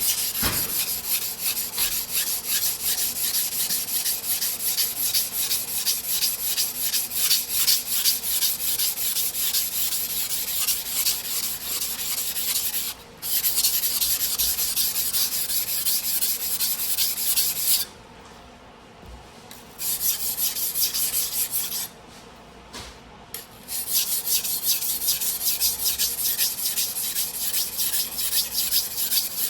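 A steel sujihiki slicing knife blade being rubbed back and forth on a whetstone in rapid, steady strokes, a bright gritty scraping. It stops briefly a few times near the middle.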